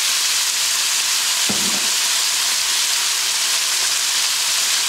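Chicken pieces and freshly added mung bean sprouts sizzling steadily in hot oil and soy sauce in a wok on high heat.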